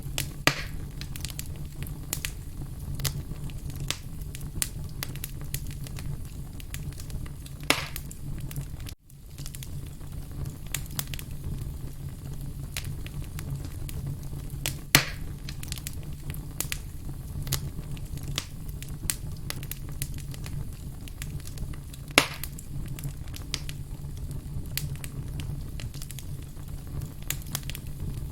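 Wood campfire crackling, with frequent small snaps and a few louder pops spread through, over a steady low hum. The sound cuts out for an instant about nine seconds in.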